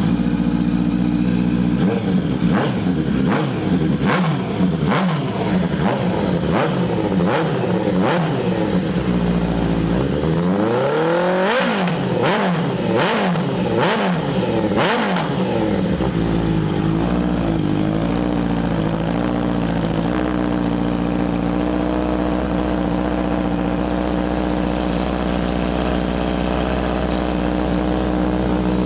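Honda CBR650R's inline-four revved through a stainless slip-on exhaust with an Excalibur GP CNC carbon muffler. It is blipped over and over with sharp pops, then given several bigger revs. From about two-thirds of the way in it settles to a steady idle.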